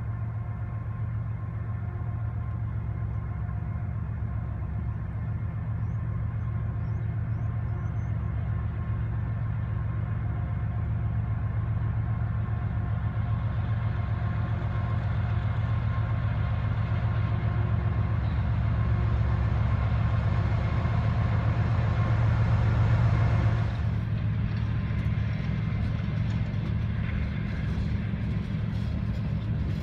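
CSX GE diesel freight locomotives approaching with a steady low engine drone that grows slowly louder. After a sudden change near the end, empty coal hopper cars roll past with a quieter rumble of wheels on rail.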